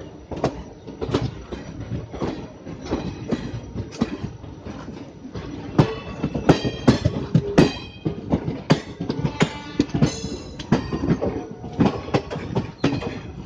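Passenger coach wheels of an Indian Railways express knocking over rail joints and points at slow speed, heard from aboard the train. High metallic wheel squeal rises above the knocking about six seconds in, and again around ten seconds.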